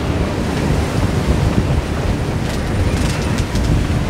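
Wind buffeting the microphone over the rush of sea water along a sailing yacht's hull as she sails upwind, with a few faint clicks about two and a half to three and a half seconds in.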